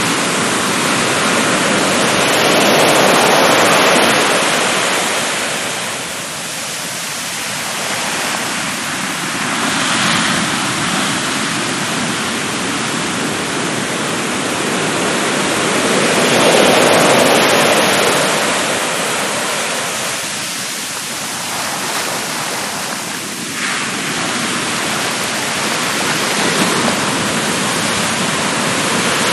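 Surf breaking and washing up a sandy beach: a continuous rush of water that swells with a breaking wave about three seconds in and again just past halfway, then eases back between.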